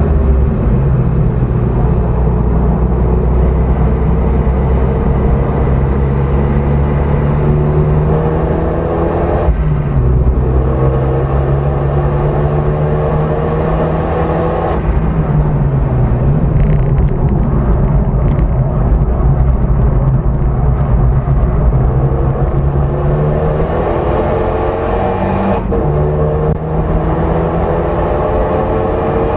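Renault Mégane RS's 2.0-litre turbocharged four-cylinder heard from inside the cabin, pulling hard at track speed. Its pitch climbs slowly and is broken by gear changes about ten, fifteen and twenty-six seconds in, over a steady rumble of road and wind noise.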